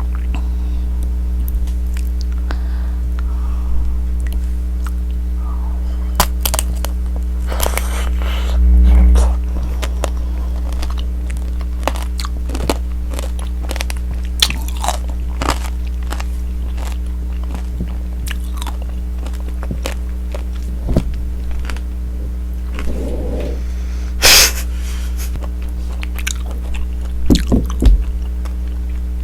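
Close-up crunching and chewing of tanghulu, the hard candy shell on the fruit cracking between the teeth in sharp crunches, loudest around 9 and 24 seconds in. A steady low hum runs underneath.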